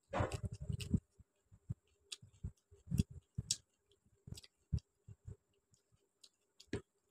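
Close-miked eating: a dense bite of raw salad during the first second, then scattered wet clicks of chewing and mouth noises, with fingers mixing rice and curry on a steel plate.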